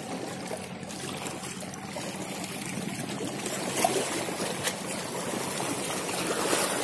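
Shallow sea water lapping and trickling among coral rocks at the shoreline, over a steady low hum of a boat engine. A couple of short clicks near the middle.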